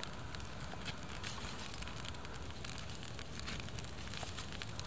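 Freshly lit dry-grass tinder crackling with many small irregular pops as the fire catches, mixed with the rustle of dry grass and twigs being laid onto the flame.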